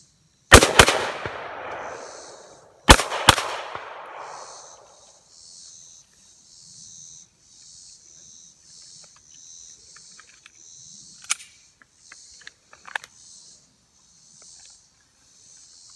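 Two quick shots from an AR-15 rifle, then about two seconds later two quick pistol shots, each pair trailing into a long echo: a rifle-to-pistol transition drill. A few faint clicks follow later, over steady insect chirping.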